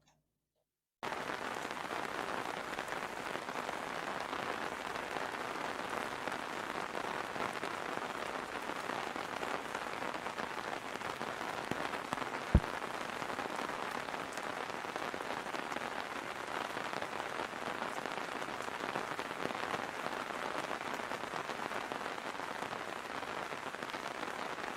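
Steady rain falling, cutting in abruptly about a second in, with one sharp click about halfway through.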